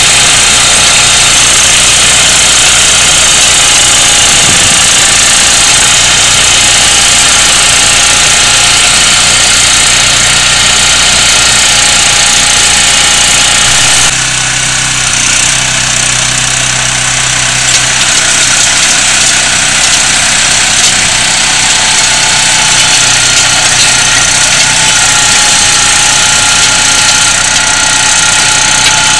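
Engine of an agria 2500 hydrostatic two-wheel tractor running steadily with a stone burier fitted; the engine note shifts abruptly about halfway through.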